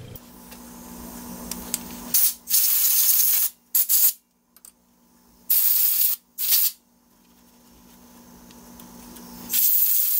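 Grease gun hissing in several loud bursts while grease is pumped out of its hose, with a faint steady hum between bursts.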